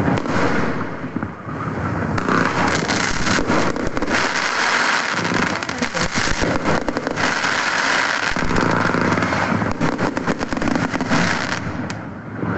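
Fireworks crackling and popping in rapid, dense succession, heard from inside a car.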